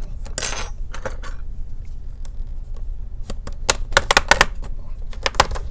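Plastic clicks and snaps as a Dell laptop's keyboard is pried away from the case, coming in a quick cluster near the middle and a few more near the end, with a short scrape about half a second in.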